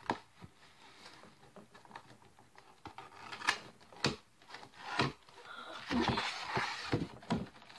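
A cardboard toy box with a plastic window being handled and opened by hand: scattered taps and clicks, then a couple of seconds of rustling and scraping as the flaps are worked near the end.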